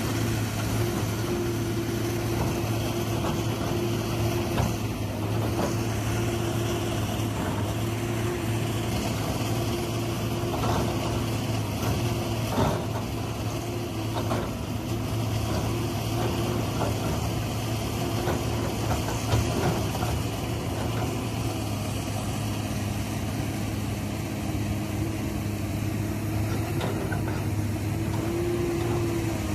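Excavator diesel engine running steadily, with a low drone and a few short knocks or clanks of the machine at work.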